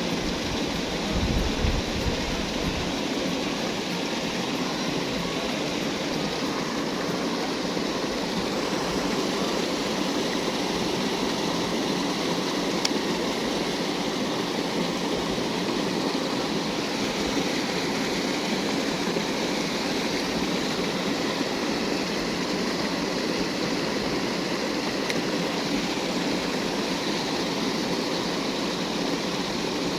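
Steady rushing of flowing water, an even hiss without let-up, with a brief low thump about a second in.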